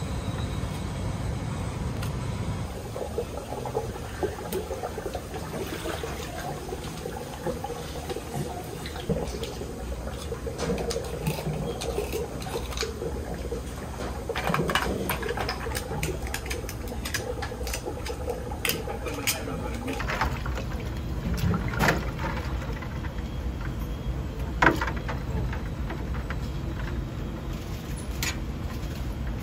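Kitchen prep sounds: water running and splashing at a sink and a live-shellfish tank, with scattered sharp clicks and knocks as horned turban shells are handled in a plastic basket, over a steady low hum.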